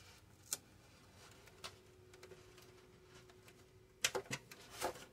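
Faint clicks and crinkles of a clear plastic RC car body being handled as a strip of masking tape is pressed onto it, with a quick cluster of louder clicks and rustles about four seconds in.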